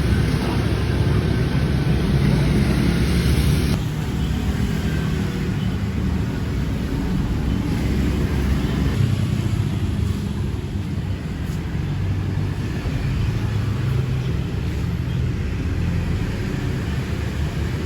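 Steady low rumble of vehicle noise, dropping a little in level about four seconds in.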